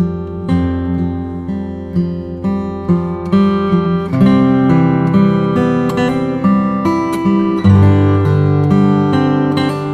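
Background music: plucked acoustic guitar, with notes changing about every half second.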